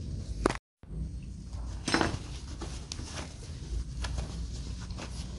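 A few scattered light clicks and taps over a low steady background, with a brief total break in the sound just under a second in.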